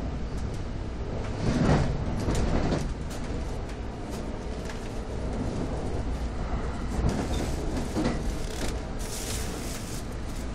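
Inside an NJ Transit passenger coach running at speed: a steady low rumble of wheels on rail, swelling louder about two seconds in and again about seven seconds in, with a brief hiss about nine seconds in.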